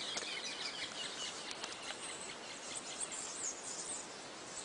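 Outdoor ambience: birds chirping and insects calling in many short high chirps over a steady background hiss.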